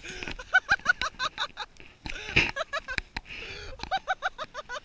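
A person's voice in quick, short, repeated syllables, with sharp knocks and rubbing from the body-worn camera being jostled in the snow.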